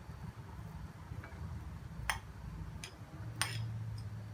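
A metal spoon clicking against a ceramic bowl as chopped onion and tomato are scraped out, a few light clicks about two and three and a half seconds in, over a low hum.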